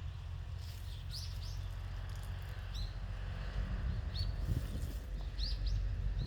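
Small birds chirping outdoors: short high chirps, about seven scattered through, some in quick pairs. They sound over a steady low rumble.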